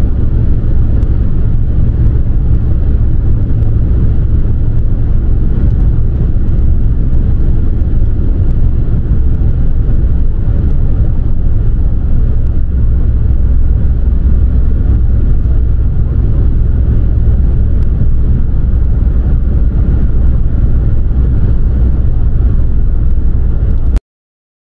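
Steady low rumble of road and engine noise from a car driving at speed on the road, cutting off suddenly near the end.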